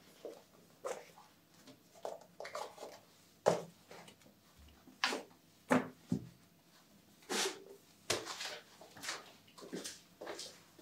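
Paperback books being picked up off a table and stacked one on another: a run of irregular soft knocks and short slides, each book set down on the pile.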